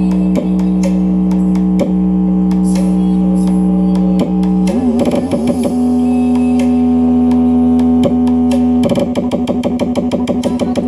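Instrumental music: long held electronic-sounding notes that shift to a higher note a little under halfway through, then turn into a fast repeated pulsing beat near the end.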